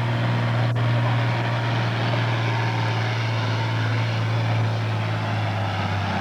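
Pro farm class tractor's diesel engine running hard and steady at full throttle while it pulls the weight sled. A single sharp click sounds just under a second in.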